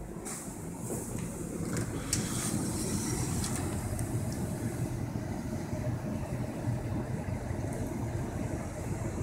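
Air-conditioning air handler in a utility closet running with a steady low hum, louder once the louvered closet door is open. A few light clicks from the door in the first couple of seconds.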